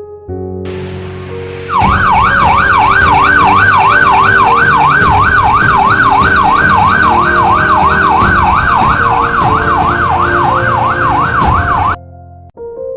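Electronic vehicle siren sounding a fast yelp, its pitch sweeping up and down about two or three times a second. It comes in loudly about two seconds in and cuts off suddenly near the end, with soft piano music underneath.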